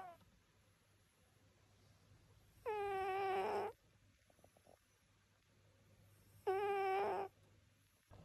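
Sleeping cat snoring: two high, squeaky, steady-pitched snores about a second long, about four seconds apart with each breath.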